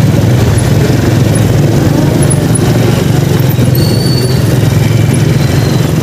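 Steady low rumble of riding through slow city street traffic: a motorcycle's engine and road noise with surrounding cars and motorcycles.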